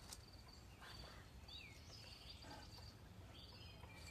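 Quiet outdoor ambience: faint, high insect chirps repeating in short groups, with a bird's brief falling call about a second and a half in.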